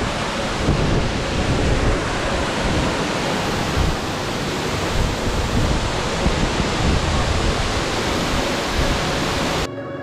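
Waterfall pouring over a rock face, heard close up as a loud, steady rush of water. Near the end it cuts off suddenly and music begins.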